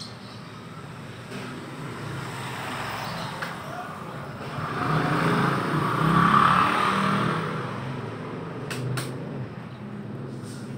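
A motor vehicle passing by, its noise swelling to a peak about halfway through and then fading, over a low rumble. Two sharp clicks come soon after.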